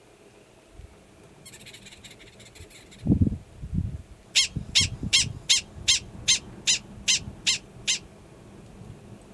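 Gunnison's prairie dog giving its alarm call: a run of about ten sharp, high yips, evenly spaced at about two and a half a second, starting about halfway through. Just before the calls, a few low thumps.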